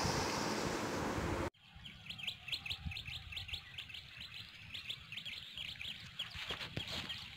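A steady rushing noise cuts off abruptly about a second and a half in. After it, a bird chirps in a rapid series of short high notes, about five a second, which thin out near the end.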